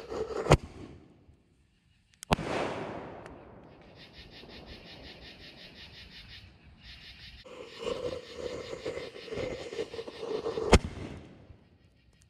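Black Cat artillery ball shells firing: a burning fuse, then a sharp launch crack about half a second in and the shell's break about two seconds later, its boom echoing away. A second fuse burns from about seven and a half seconds and the next launch crack comes near the end.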